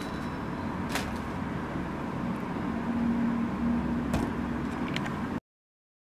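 Steady background rumble with a few sharp clicks, about one second in and again near the end, then an abrupt cut to silence about five seconds in.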